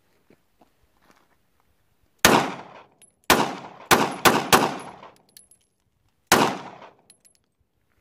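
Six gunshots from a semi-automatic firearm, unevenly spaced. One comes about two seconds in, then a quick run of four over the next second and a half, then a last one near the end. Each shot has a short echo trailing off.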